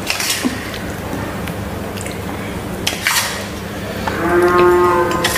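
A steel spoon clinks and scrapes against a steel serving bowl of egg curry. About four seconds in comes one long, steady-pitched vocal call lasting a little over a second, the loudest sound here.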